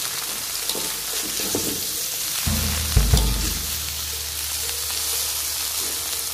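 Water spinach (kangkung) leaves sizzling in hot oil in a wok as they are stir-fried with a metal spatula, with two sharp knocks of the spatula against the wok about three seconds in.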